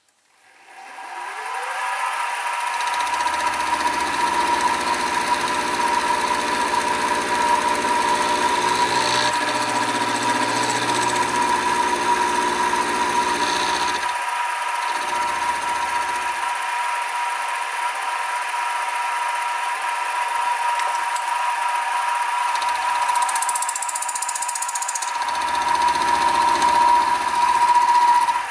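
Sieg SX2P mini mill spindle running with a steady high whine, rising in pitch as it comes up to speed at the start. A lower grinding comes and goes several times as the end mill cuts a radius on the end of a conrod held on a rotary table.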